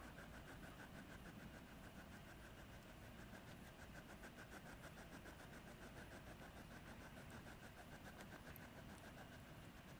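Near silence: a faint low rumble with a faint, even, rapid pulsing tone throughout.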